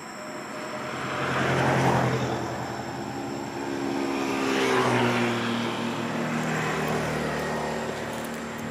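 Two motor vehicles passing by on the road in turn, the first about two seconds in and the second about five seconds in, each engine note swelling, dropping slightly in pitch as it goes by, and fading.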